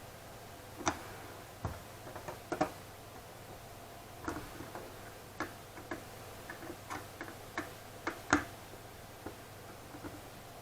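Irregular light clicks and taps, some in quick pairs, from small parts and tools being handled while working on a graphics card; the sharpest click comes about eight seconds in.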